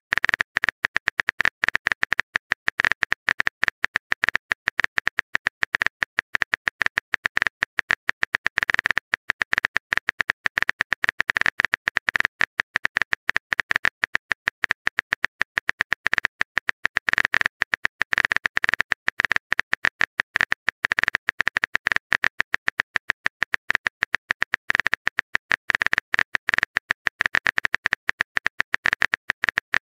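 Phone keyboard typing sound effect: a fast, unbroken run of small, even key clicks as a long text message is typed out.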